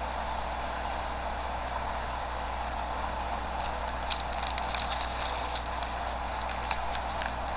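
Baseball trading cards being handled and flipped through, giving small crisp clicks and rustles between about three and seven seconds in, over a steady background hiss.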